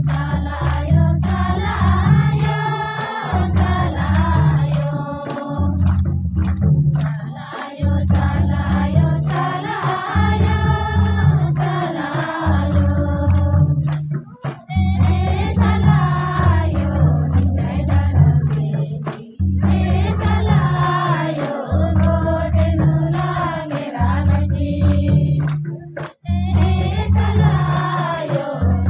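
Kurukh devotional song (bhajan): voices singing in phrases over a steady beat of deep drum and jingling, tambourine-like percussion, about two strokes a second.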